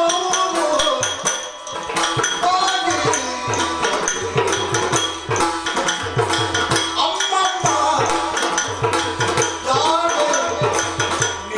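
Yakshagana music: chende and maddale drums playing a dense rhythm under a sung melody, with a steady drone beneath.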